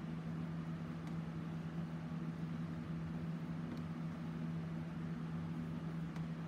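A steady low mechanical hum with a faint hiss, like a fan or appliance running in the room, with a few faint ticks about a second in, near four seconds in, and near six seconds in.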